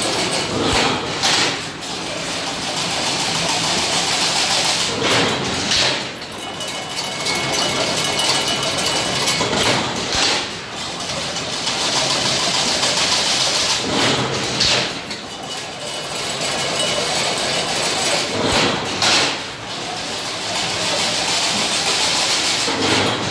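Automatic chain link fence machine running, weaving wire mesh: a continuous mechanical din that swells about every four to five seconds in a repeating cycle.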